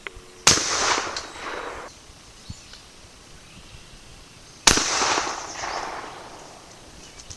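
Two 12-gauge shotgun shots about four seconds apart from a Sears and Roebuck full-choke shotgun, each a sharp blast followed by a tail that fades over a second or more.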